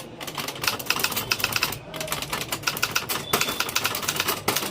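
Typewriter being typed on quickly: fast runs of sharp keystroke clacks, with a brief pause about two seconds in.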